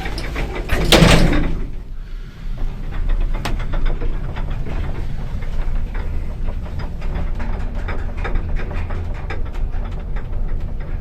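Old ZR passenger lift: its doors shut with a loud bang about a second in, then the car travels with a steady low hum and continual small rattles and clicks.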